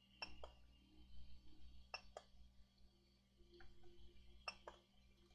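Near silence with a few faint clicks, mostly in close pairs, from working the 3D printer's controls; from about three seconds in, a faint low hum comes and goes.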